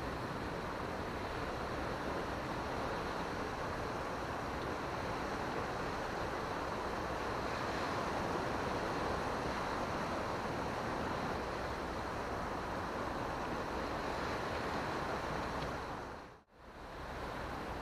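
Steady noise of surf breaking and washing over a rocky shore, mixed with wind on the microphone. The sound drops out sharply for a moment near the end.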